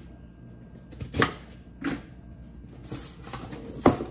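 Cardboard shipping box being cut open with a knife and handled: a few sharp knocks and scrapes, with the loudest near the end as the flaps are pulled open.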